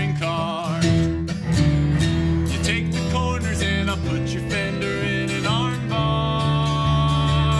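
A band plays an instrumental passage of a country-folk song: acoustic guitar strumming over sustained bowed cello notes and keyboard.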